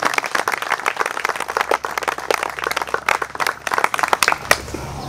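A small group of people applauding with scattered hand claps, dying away about four and a half seconds in.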